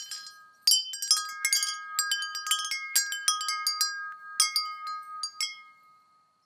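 Wind chimes tinkling: a string of quick metallic strikes, each left ringing, that dies away shortly before the end.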